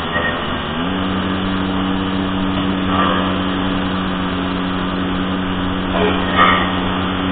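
Motorbike engine running steadily while riding, its pitch stepping up about a second in and then holding, over a steady rush of road and wind noise.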